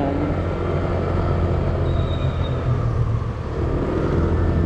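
Honda Click 125i scooter's single-cylinder engine running steadily while riding, heard with road and air rush; the engine note dips briefly a little over three seconds in.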